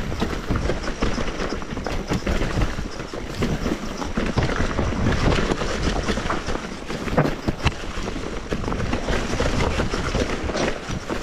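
Mountain bike riding down a dirt trail: a steady rumble of tyres and a rattling bike, with sharp knocks over bumps, two of the loudest about seven seconds in.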